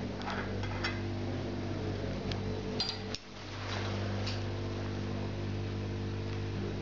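Light metallic clicks and clinks as the metal parts of a lamp fitting, its socket shells and bent arm, are handled and worked with pliers, over a steady low hum. The hum drops out briefly about three seconds in.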